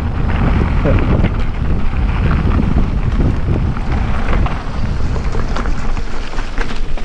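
Wind buffeting the microphone: a loud, steady low rushing with scattered crackles.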